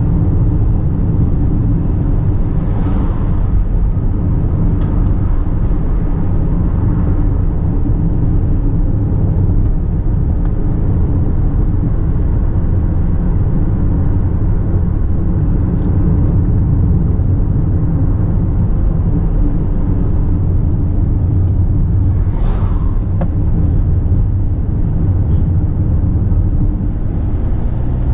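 Car engine and tyre road noise heard from inside the cabin while driving: a steady low rumble, with two brief swells of higher-pitched noise, about three seconds in and again after about twenty-two seconds.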